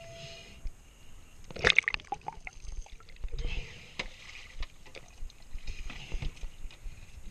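Water sloshing and splashing against a boat's stern as a swimmer hauls out of the sea on the swim ladder, with one loud splash about a second and a half in. A few sharp knocks follow later.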